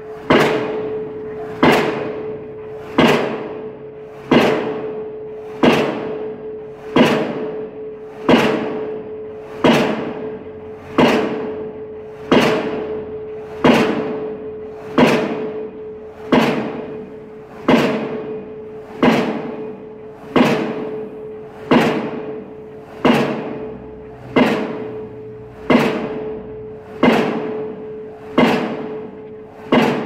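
Diesel impact pile hammer driving a steel pile, striking in a steady rhythm of about one blow every 1.3 seconds. Each blow is a sharp metallic bang with a short ringing tail, over a steady hum.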